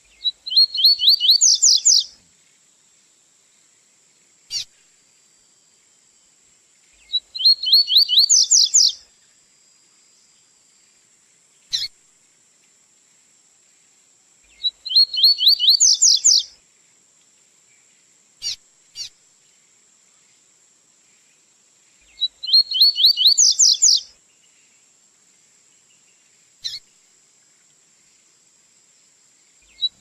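Double-collared seedeater (coleiro) singing the tui-tui song type: four short phrases, each a rapid trill of notes climbing in pitch and lasting about two seconds, repeated every seven seconds or so, with single short call notes in the gaps. A faint steady high-pitched whine runs underneath.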